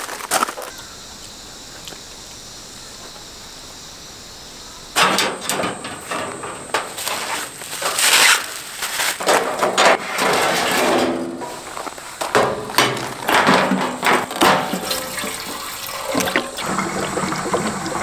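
Kerosene poured from a plastic jerry can into the fuel tank of a Paseco reflective kerosene heater, gurgling and splashing in irregular gushes that start about five seconds in.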